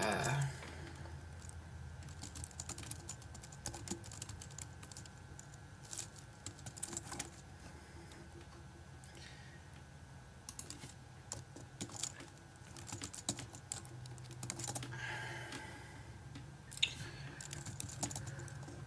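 Typing on a computer keyboard: irregular keystrokes in several bursts with short pauses, as a user ID and password are entered into a login form.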